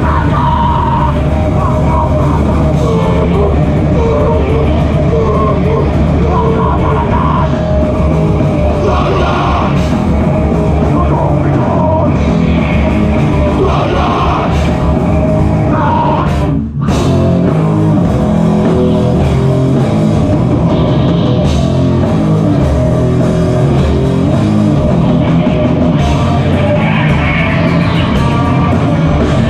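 Grindcore/powerviolence band playing loud and live, with drums and distorted guitar. About halfway through, the band stops dead for a split second.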